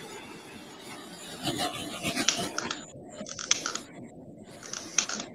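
Irregular scratchy rubbing and scraping with small clicks, starting about a second and a half in: handling noise close to a microphone.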